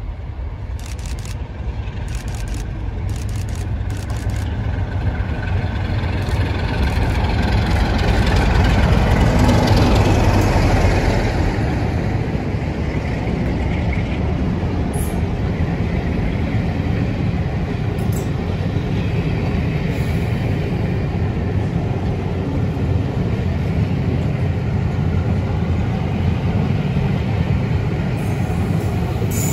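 Locomotive-hauled passenger train passing close by, led by a diesel locomotive. The rumble builds to its loudest about a third of the way in as the locomotive goes past, then settles into the steady rolling of the coaches' wheels on the rails.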